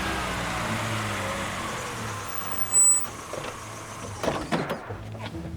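A motor vehicle running and pulling up, its engine noise fading over the first couple of seconds. A brief sharp high-pitched squeal about three seconds in, then a few knocks near the end.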